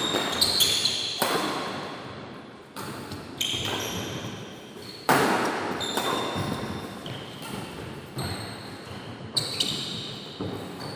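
Badminton rally: rackets striking a shuttlecock, a sharp echoing hit every second or so, with short high squeaks of shoes on the court between the hits.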